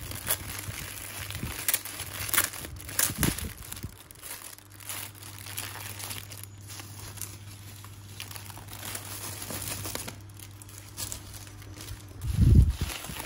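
Clear plastic bags and bubble wrap crinkling and crackling in irregular bursts as bagged keychains are handled, with a dull low thump near the end.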